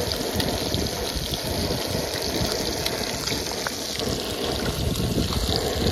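Fish pieces deep-frying in hot oil in an aluminium pot, a steady sizzle, with a few faint clicks of a metal slotted spoon stirring them.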